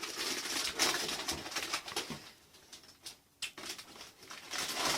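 Packaging of a building-block set being opened and handled: irregular rustling and scraping of cardboard and plastic, easing off about three seconds in and picking up again near the end.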